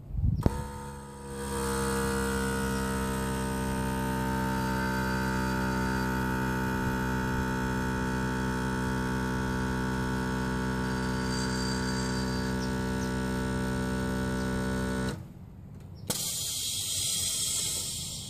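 Motorcycle airbag suspension's small electric air compressor starting with a few clicks, running with a steady hum for about thirteen seconds while it inflates the bags, then cutting off. A second later a valve clicks and air hisses out for about two seconds.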